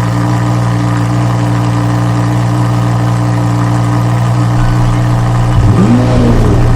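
Lamborghini engine sound effect: the engine idles steadily, then about five and a half seconds in it gets rougher and gives a short rev that rises and falls in pitch.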